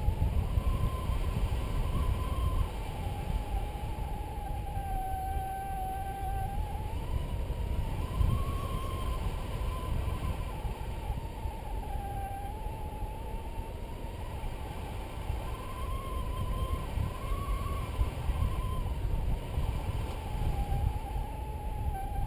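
Paragliding variometer giving a steady tone that slowly rises and falls in pitch, tracking the rate of climb and sink to show where the lift is. Wind rumbles and buffets on the microphone underneath it.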